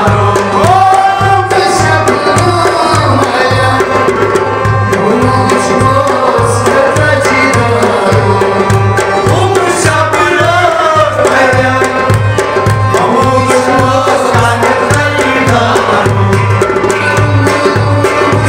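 Kalam sung by a man to his own harmonium accompaniment, over a steady hand-drum beat.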